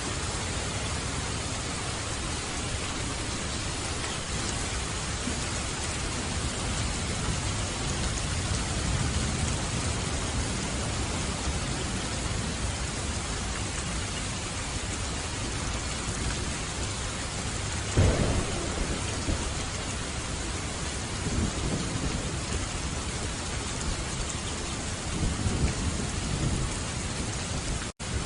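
Steady heavy rain falling, with low rolls of thunder now and then and one sharp thunderclap about two-thirds of the way through. The sound cuts out for an instant near the end.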